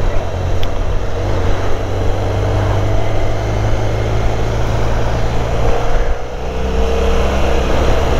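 Motorcycle engine running at road speed with steady wind noise rushing past. About six seconds in the level dips and the engine note drops to a lower pitch.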